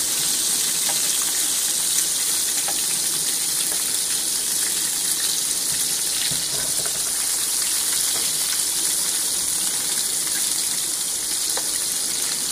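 Raw beef-mince kababs shallow-frying in oil over low heat: a steady sizzle with light crackles.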